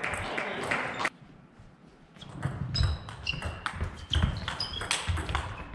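Table tennis rally: the plastic ball clicking sharply off bats and table, with players' footsteps thudding on the sports-hall floor, echoing in the hall. The clicks stop for about a second, a second in, then resume in quick succession.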